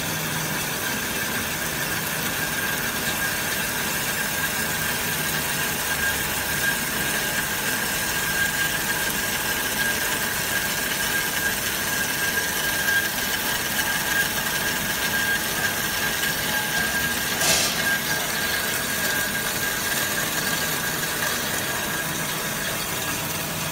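Automatic metal-cutting band saw running, its blade cutting through a solid steel round bar under coolant: a steady hiss with a thin high whine that fades out near the end. One short sharp click about two-thirds of the way through.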